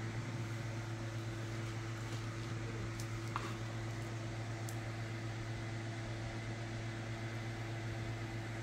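Steady low hum with a fainter higher steady tone, room tone from a running appliance, with a few faint light clicks about three and five seconds in.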